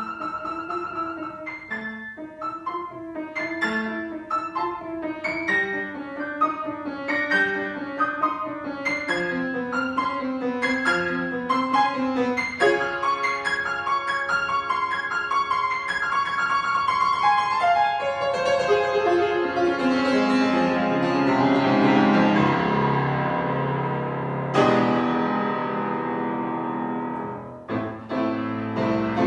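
Piano playing. Separate notes give way to fuller chords and a falling run, and a loud struck chord about two-thirds through rings out and dies away.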